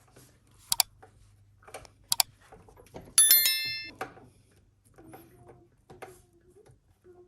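Two sharp metallic clicks, then a single loud bright metallic ring about three seconds in that fades within a second, amid light handling noise from bike parts and tools being worked on.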